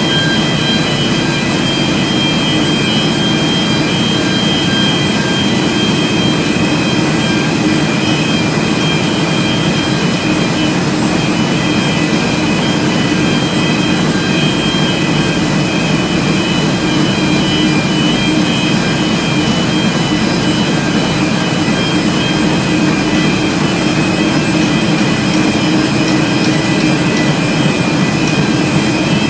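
KBA Rapida 105 sheetfed offset printing press running: a loud, steady mechanical hum with several steady high whines over it.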